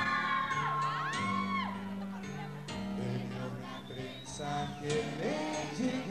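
Cumbia band playing the instrumental opening of a song, with high whooping calls gliding up and down over the music.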